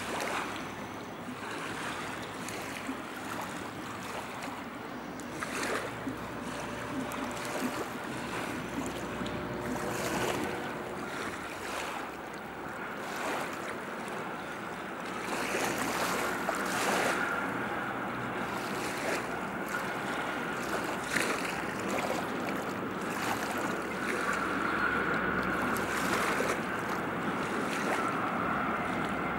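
Rhine river water lapping and splashing at the bank, with irregular small splashes over a steady wash of moving water and some wind.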